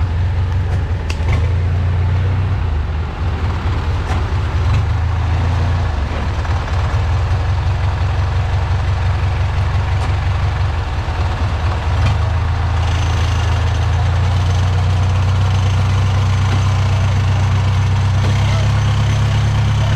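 Engine of a modified off-road 4x4 running steadily as the vehicle crawls along a muddy trail. The low engine note grows a little stronger about two-thirds of the way in.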